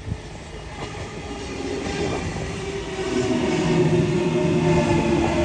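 Sydney Trains Waratah B-set double-deck electric train coming past close by, growing louder over the first few seconds. It carries a steady whine of several tones over wheel and rail noise.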